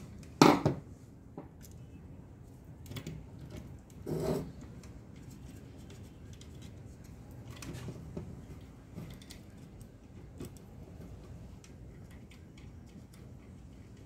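A screwdriver backing out the screws of a gas water heater's brass hydraulic water valve, then hands working the valve body apart: small metal clicks and scraping. There is a sharp knock about half a second in and another about four seconds in.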